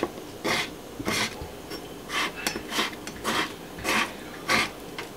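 Kitchen knife scoring raw abalone on a wooden cutting board: a steady run of short slicing strokes, a little under two a second, the blade rasping through the flesh onto the board.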